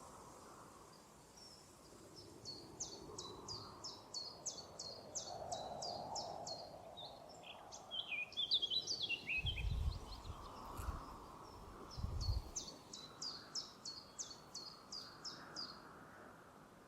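A forest songbird singing: a long, rapid series of sharp, high down-slurred notes, a brief jumbled warble, then the rapid series again. A few low thuds sound midway.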